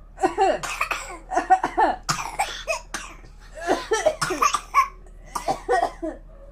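A young child's voice making short breathy vocal bursts in about five quick groups.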